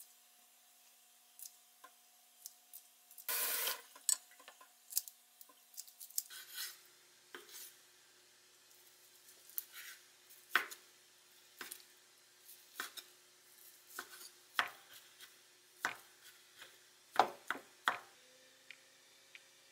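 Chef's knife slicing and dicing cooked chicken breast on a bamboo cutting board: irregular sharp knocks of the blade on the wood. Earlier, light clinks of metal tongs against an enamel dish and a short scrape about three seconds in.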